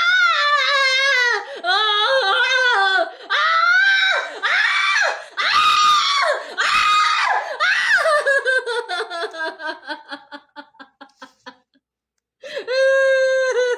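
A person's high-pitched, wavering voice, laughing and shrieking without words. It trails off in a long run of quick ha-ha pulses that fade away, then breaks off briefly before the high voice starts again near the end.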